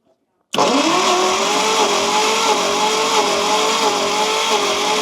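Starter motor cranking the 1953 Kaiser Manhattan's Continental 226 flathead six, starting about half a second in. It is a steady whine that dips slightly in pitch at an even beat, a little under twice a second, as the cylinders come up on compression. The crank is for a compression test on cylinder 5, which reads only about 20 psi from stuck valves.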